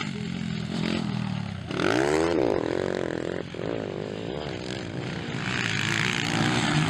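230 cc dirt bike engines racing. About two seconds in, one engine's pitch rises and falls as it revs hard, then the engines run steadily, getting louder near the end as a bike passes close.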